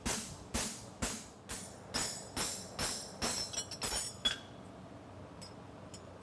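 Hand hammer striking a handled forging tool held on a steel horseshoe on the anvil, each blow a sharp ringing clang, about two a second, quickening slightly before stopping about four seconds in. A few faint taps follow.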